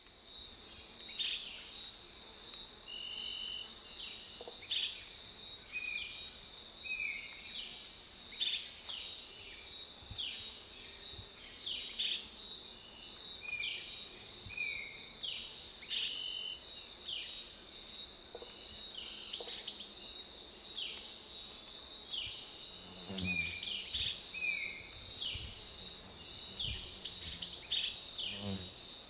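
Insect chorus at night: a steady, high-pitched trill, with short chirps repeating about once a second.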